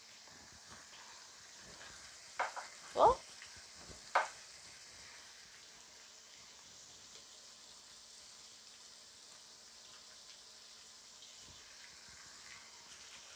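Ground beef frying in a pan with a faint steady sizzle as its juices cook off. A few short, sharp sounds come about two and a half to four seconds in, the loudest one sliding down in pitch.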